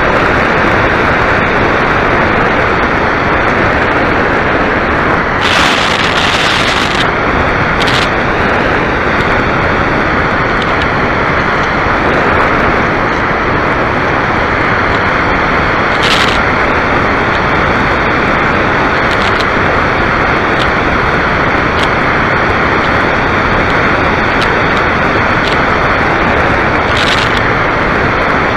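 Loud, steady rush of airflow over a model aircraft's onboard camera microphone in flight, with a few brief higher hisses.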